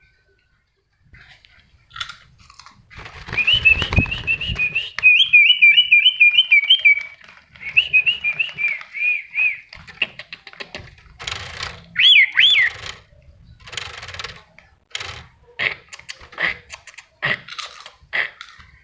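Bird-like whistled call: a fast run of warbling, rising-and-falling whistles from about three seconds in to nearly ten seconds, then one short two-note whistle about twelve seconds in. Sharp clicks and rustles are scattered through the second half.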